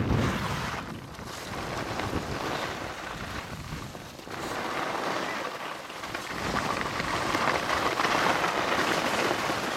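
Skis sliding and scraping over snow, a steady hiss, mixed with wind rumbling on the microphone near the start; the hiss grows stronger in the last few seconds.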